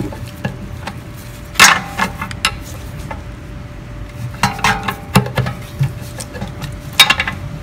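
A pry bar knocking and clanking against a Honda Ridgeline's oil pan as the pan is pried loose from its silicone seal: a few sharp knocks, the loudest about one and a half seconds in and near the end, with a quick run of them in the middle, some with a short metallic ring.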